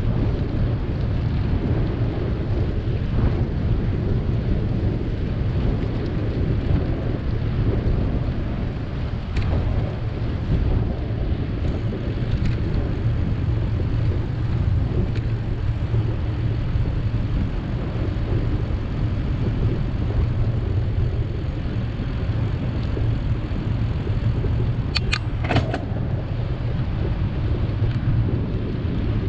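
Steady low rumble of wind buffeting the microphone of a camera on a moving bicycle, mixed with tyre and road noise. A few short sharp clicks near the end.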